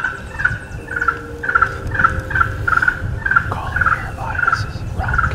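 Turkey yelping on a mouth call: a steady run of about a dozen short yelps, about three a second, all at the same pitch.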